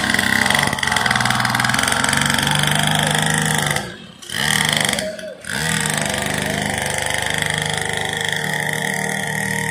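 Small petrol engine of a children's mini dirt bike running as the bike is ridden. The sound drops away briefly twice, about four seconds and about five seconds in, then comes back.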